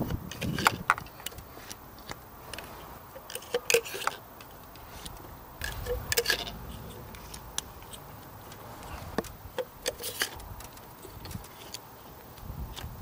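Plastic clicks and knocks as new NGK coil packs are handled and pushed down into the spark plug wells of the engine, one after another. The clicks come irregularly, several close together around four seconds in and again around six and ten seconds.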